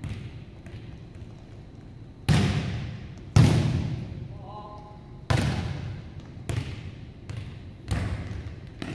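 A volleyball struck and bouncing on a hardwood gym floor: about seven sharp slaps and thuds at uneven intervals, the loudest a little over three seconds in, each echoing through the large gymnasium.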